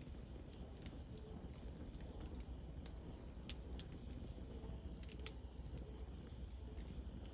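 Fire in a fireplace crackling: irregular sharp pops and snaps, about a dozen, over a steady low rumble of burning flames.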